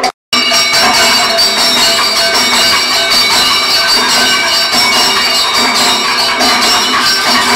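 Kathakali percussion accompaniment: drums struck rapidly under clashing, ringing hand cymbals, in a dense, steady wash. The sound cuts out for a split second right at the start, then runs on loud and unbroken.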